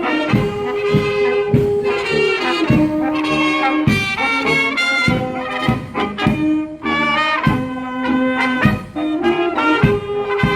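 Brass band playing, with trumpets and trombones over a steady bass drum beat about every half second to second.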